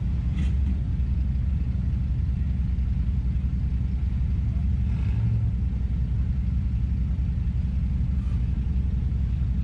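Nissan enduro race car's engine running steadily at low revs with no revving, a deep rumble heard from inside the stripped cabin.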